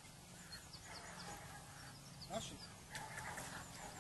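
Faint chirping of small birds, many short calls scattered through, with one lower, falling call about two and a half seconds in.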